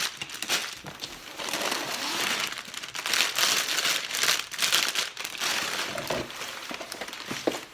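Plastic bags of Lego pieces crinkling and rustling as they are handled, in a stretch of uneven rustling with many small crackles.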